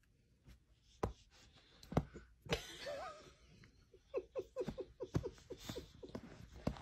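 Small dogs play-fighting: a few sharp snaps of the jaws, then a brief wavering whine and a run of short, quick high-pitched vocal pulses, about four or five a second.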